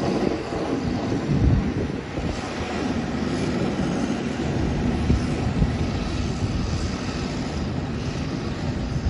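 Champion 720VHP motor grader's diesel engine running steadily as the grader moves slowly away.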